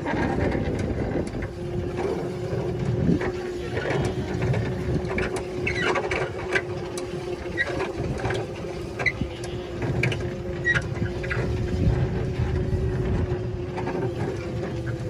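A steady mechanical hum, two even tones held throughout, with irregular short clicks and knocks over it.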